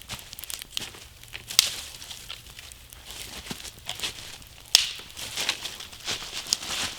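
Wood campfire crackling: a steady run of small snaps and hiss, with two louder pops, one about a second and a half in and one just before five seconds.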